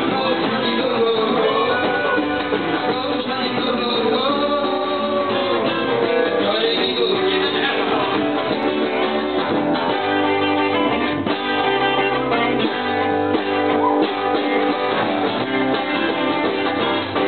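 A live band playing upbeat dance music led by guitar, with a singing voice.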